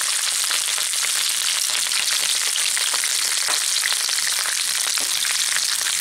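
Snake gourd pieces sizzling steadily in hot mustard oil in a nonstick frying pan, being turned with a slotted spatula, with now and then a light tap or scrape of the spatula against the pan.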